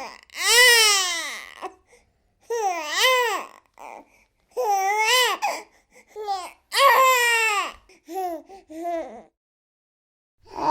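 A baby fussing and crying in a string of short, high-pitched wails, each rising and falling in pitch, with brief gaps between them; it falls silent about a second before the end.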